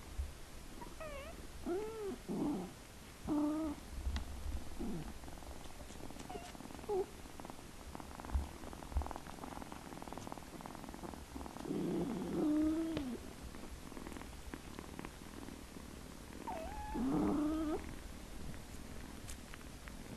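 Kittens meowing in short calls that rise and fall, scattered through the stretch, with longer, louder meows about twelve seconds in and again near the end. A low purr runs underneath.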